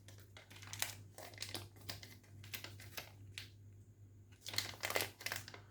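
Plastic packaging crinkling as it is handled, a scatter of small crackles and clicks, over a steady low hum.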